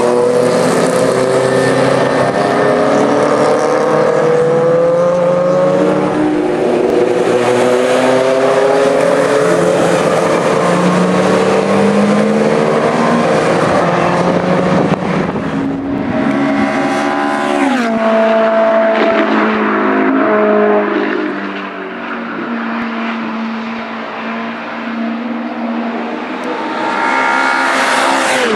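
Classic racing cars at high revs going past on a circuit, several engines overlapping with their pitch climbing through the gears. About 17 seconds in, one engine's pitch drops sharply as it goes by. The engines then run quieter for a few seconds before another car comes up loudly near the end.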